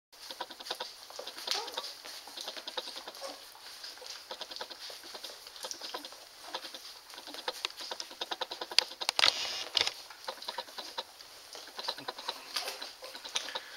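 Newborn standard poodle puppies suckling at their mother: a dense, irregular run of quick wet smacking clicks, with a few brief squeaks.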